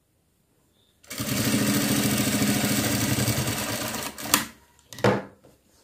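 Industrial lockstitch sewing machine starting about a second in and stitching at a steady fast rate for about three seconds, then stopping. It is followed by two short sharp clicks as the thread is snipped with scissors.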